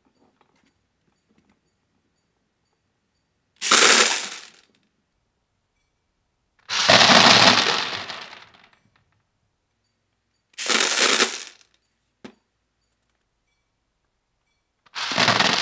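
Heavyweight airsoft BBs shooting out of a midcap magazine fitted with a strong SuperFeed replacement spring and clattering into a plastic box, in four bursts of one to two seconds each. A single click comes between the third and fourth bursts.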